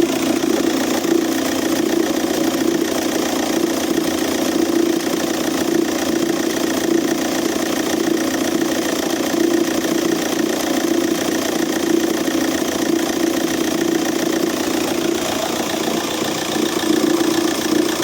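Audi A3 8P's 2.0 TDI (BMM) diesel engine idling with a steady knocking, caused by a seized overrunning clutch pulley on the alternator. At first hearing it sounds like a failed dual-mass flywheel.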